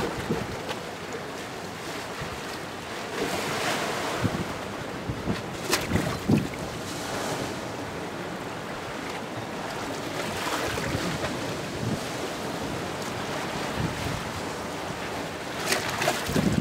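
Ocean surf breaking and washing over rocks at the shore: a continuous rush of foaming water, with sharper splashes about four and six seconds in and again near the end.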